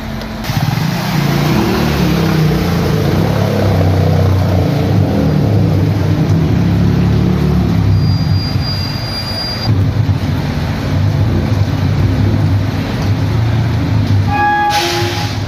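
A motor vehicle engine running as a loud, low rumble whose pitch shifts up and down, with a brief burst of pitched tones near the end.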